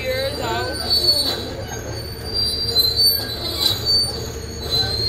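John Deere tracked excavator travelling: its tracks squeal and screech in high, wavering tones over the steady low running of its diesel engine.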